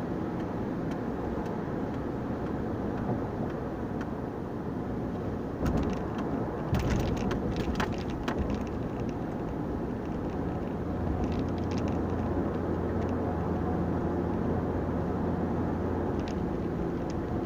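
Steady road and engine noise heard inside a car cruising at highway speed. A cluster of short clicks and knocks comes about six to eight seconds in, and a low steady hum settles in for the second half.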